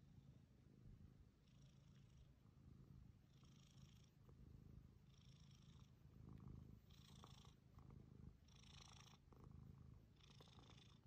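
Domestic cat purring steadily and faintly while being scratched behind the ear and under the chin, with a soft hissy sound recurring about every two seconds.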